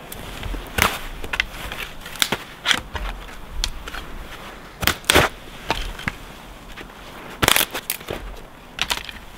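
Irregular sharp clicks and knocks, about a dozen in all, from a rifle's action being worked and knocked to clear it of packed snow that has jammed it.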